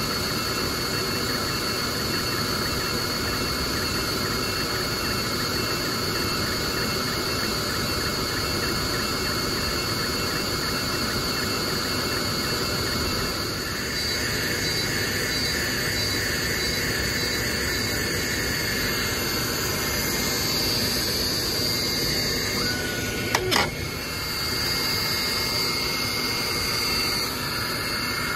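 Ortur Laser Master 3 diode laser engraver running an engraving and cutting job: a steady mechanical whir and hiss with a constant high whine. A single sharp click about three-quarters of the way through.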